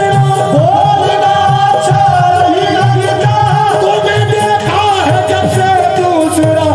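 Live qawwali: a lead male singer on a microphone over harmonium and hand drums, the harmonium's held notes and the drum strokes running steadily under the voice.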